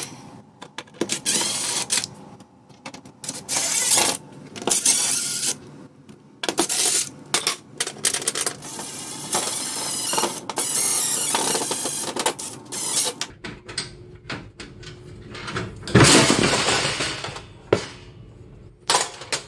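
DeWalt 20-volt cordless impact driver hammering screws out of a steel wall mounting plate, in repeated bursts of a second or two. About three seconds before the end there is a loud metallic clatter as the plate is handled off the wall.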